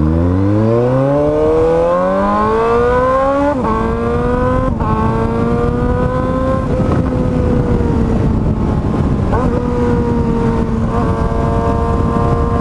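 Motorcycle engine running loud through an Akrapovič exhaust with its end tip removed. It accelerates with the pitch rising for about three and a half seconds, drops pitch at two quick upshifts, then holds a steady cruise with small throttle changes.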